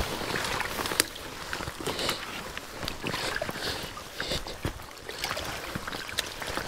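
Uneven splashing and squelching of feet and fatbike tyres pushed through waterlogged marsh and wet snow, with a few sharp clicks, the loudest about a second in.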